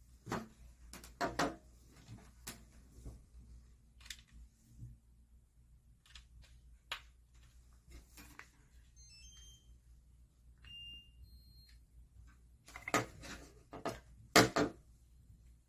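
Handling noise of a plastic LED face mask and its cable on a tabletop: scattered light clicks and knocks, with a cluster of louder taps near the start and the loudest near the end as the cable plug is worked into the mask's panel. A few faint, short high-pitched electronic beeps come in the middle.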